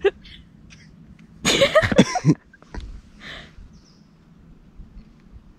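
A short, loud human vocal noise about one and a half seconds in, with quiet outdoor background around it.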